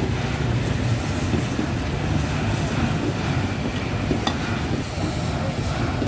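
Steady street-market din dominated by a low engine-like hum with traffic noise, and a brief click about four seconds in.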